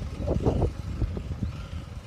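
Wind buffeting and road rumble on a bicycle-mounted camera's microphone while riding, with a few brief knocks about half a second in.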